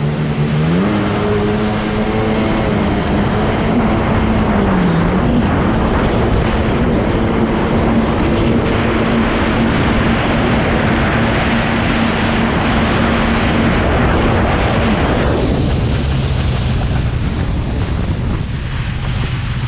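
1998 Sea-Doo GSX jet ski's two-stroke engine pulling hard: its pitch rises in the first second and holds steady and high at speed, dips briefly around five seconds in, then drops to a lower tone about three-quarters of the way through as the throttle eases. Heavy wind noise on the microphone and the rush of water spray run under it.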